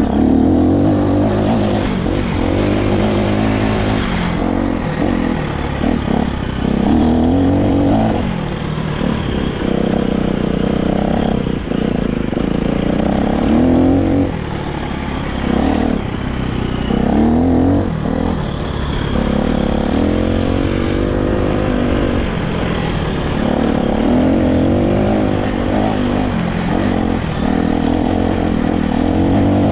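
Off-road motorcycle engine running while riding a loose gravel track, repeatedly revving up and easing off, with the tyres crunching over stones.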